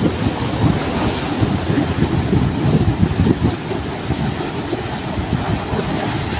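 Sea surf washing and breaking over a rocky reef, with wind buffeting the microphone in a steady low rumble.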